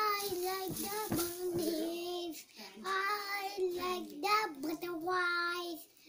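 A young child singing in short phrases with long held notes.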